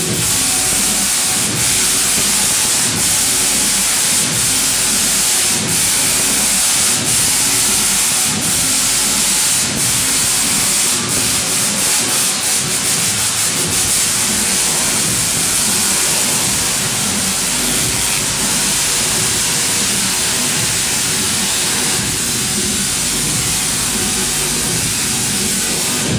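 A large, powerful Tesla coil firing, its spark discharges making a loud, steady, harsh buzzing crackle as the arcs strike a handheld rod. Sharper cracks stand out about every second or so in the first half. The noise cuts off suddenly at the end.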